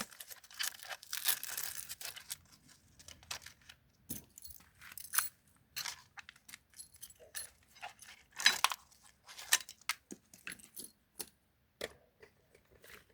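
Irregular scuffs, clicks and rustles of a person moving about and handling things, with a denser stretch of rustling in the first two seconds and scattered sharp ticks after it.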